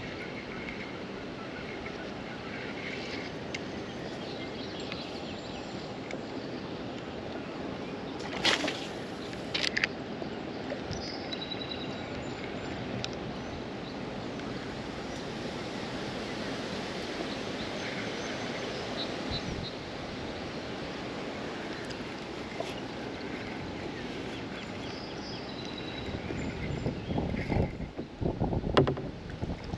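Kayak on a river: a steady rush of water and wind noise on the action-camera microphone, with short bird chirps now and then. Two sharp knocks come about eight and ten seconds in, and irregular paddle splashes pick up near the end.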